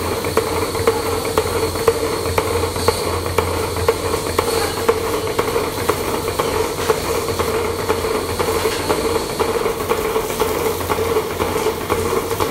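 Milking machine running in a milking parlour: a steady hiss and hum from the vacuum system, with frequent short clicks like those of the pulsators on the milking clusters.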